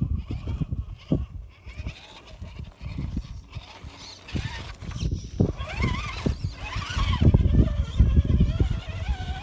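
Radio-controlled rock crawler climbing rock: its electric motor and drivetrain whine, the pitch wavering up and down with the throttle, loudest from about halfway through, over a heavy low rumble and knocking on the microphone.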